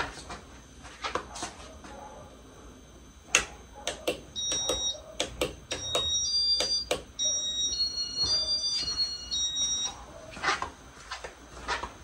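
Scattered sharp clicks, and from about four to ten seconds in a run of short, high electronic beeps stepping between several pitches.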